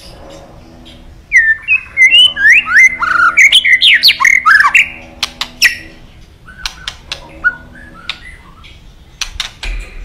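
White-rumped shama singing: a loud, rapid run of varied whistles and slurred notes mixed with sharp clicks, lasting about three and a half seconds. Then softer scattered notes and clicks follow.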